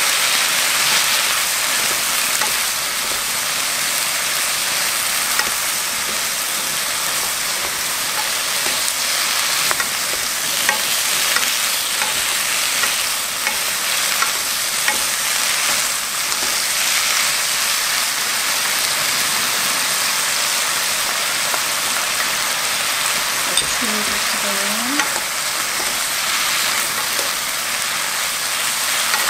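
Sweet potato stems sizzling as they are stir-fried in oil, steadily, while two wooden spatulas toss them in the pan with small scattered clicks of wood against the pan.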